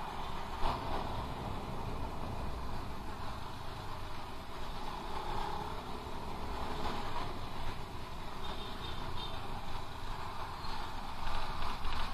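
Honda Beat scooter's small single-cylinder engine running while riding through city traffic, under a steady rush of wind and road noise.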